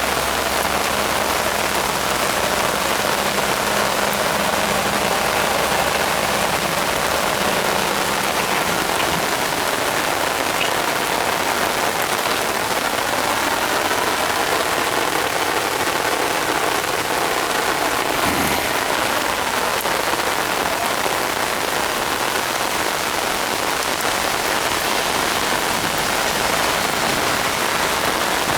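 Steady rain falling, an even hiss throughout. A faint low hum runs under it for the first several seconds.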